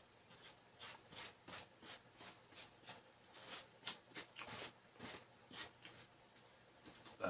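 Faint eating sounds: a metal spoon scraping and tapping in a styrofoam takeout box, with chewing, heard as short irregular clicks a few times a second. A brief louder sound comes right at the end.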